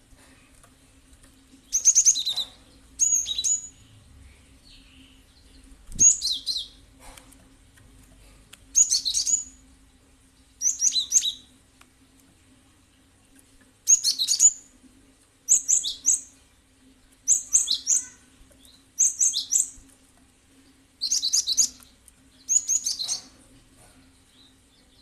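Gelatik batu (cinereous tit) singing: about eleven short phrases of rapid, high chirping notes, each under a second long and spaced a second or two apart. A faint steady hum lies under it.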